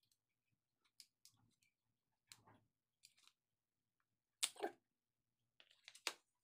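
Quiet handling noises as a hardpack LiPo battery is moved and set down on a cutting mat: scattered soft clicks and rubs, the loudest a double knock about four and a half seconds in, and another few knocks about six seconds in.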